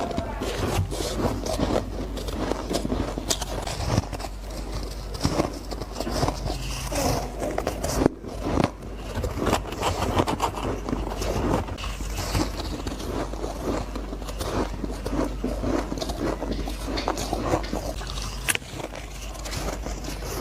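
Close-miked biting and chewing of soft ice and freezer frost: a dense run of crisp crunches and scraping, with a brief pause about eight seconds in.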